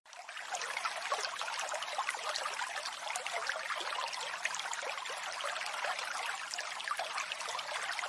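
Stream water rushing and splashing through the gaps between a row of stepping stones, a steady splashing rush that starts abruptly.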